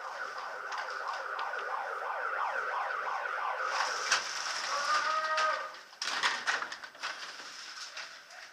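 A warbling siren-like signal sounds for about three and a half seconds, followed by a drawn-out shout. About six seconds in there is a quick burst of sharp cracks.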